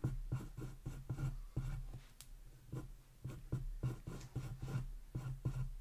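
Pencil scratching on a sheet of paper on a wooden tabletop, in many quick short strokes as little trees are sketched onto a map. The strokes ease off briefly about two to three seconds in.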